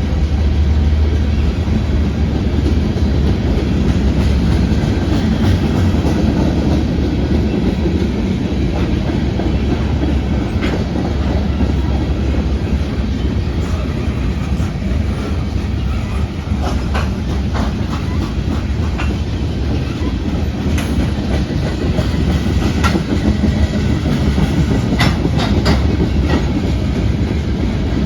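Norfolk Southern train rolling past a grade crossing: a steady, loud rumble of cars with wheels clicking over the rail joints, the clicks coming more often in the second half.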